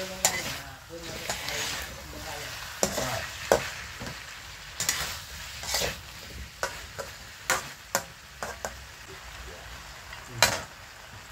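Metal spatula scraping and knocking against a steel wok in irregular strokes while eggplant and frog pieces are stir-fried, over a steady sizzle of frying.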